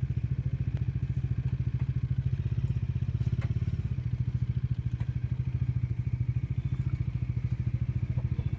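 Bajaj Dominar 400's single-cylinder engine running at low revs with a steady, fast, even pulse.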